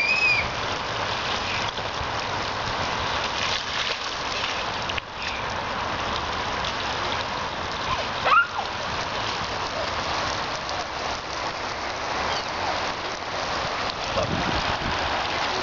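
Water spraying from a slip 'n slide's sprinkler jets onto the wet plastic sheet and grass, a steady hiss. A child's short high squeal rises over it at the start and again about eight seconds in.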